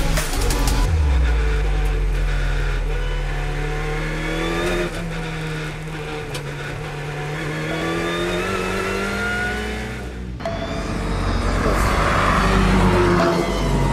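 Alpine A110 Cup race car's turbocharged four-cylinder engine heard from inside the cockpit, revs rising as it pulls out of a corner. About ten seconds in it cuts to Alpine A110 road cars driving past, a swelling rush of engine and tyre noise.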